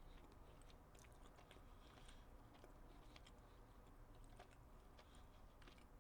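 Faint chewing and mouth clicks of a man eating, just above near silence.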